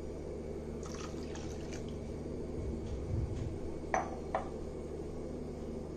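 Milk poured from a glass measuring jug into a glass mixing bowl of batter: soft pouring and splashing, then two light glass clinks about four seconds in, over a steady low hum.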